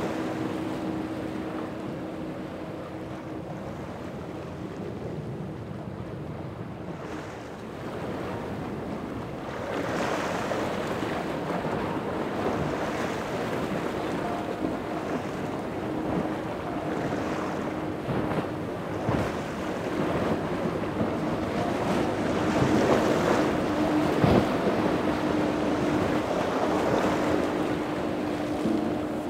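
Powerboat engines droning at a steady pitch, with waves breaking and wind buffeting the microphone. The water and wind grow louder about ten seconds in.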